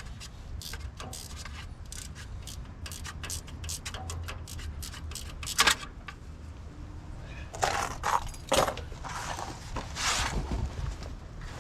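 Hand tools working on metal: a run of quick, irregular clicks, a sharp knock about five and a half seconds in, then clattering and scraping.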